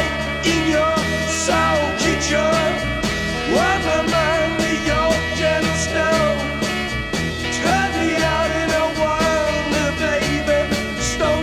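Background rock music with a steady bass line and a bending lead melody.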